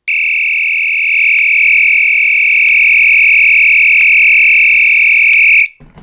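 Potter horn strobe on a door-open alarm sounding a loud, steady, continuous high-pitched tone, switched on by the timer board because the gate has been left open too long. It cuts off suddenly near the end as the gate is closed and the alarm resets.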